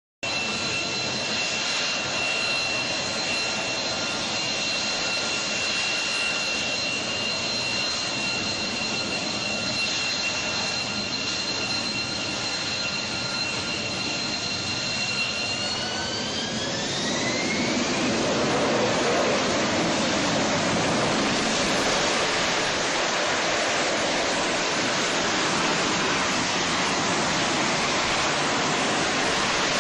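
Fighter jet's engine with a steady high turbine whine over a rushing roar, then spooling up for takeoff: the whine rises in pitch after about fifteen seconds and gives way to a louder, even roar of full thrust.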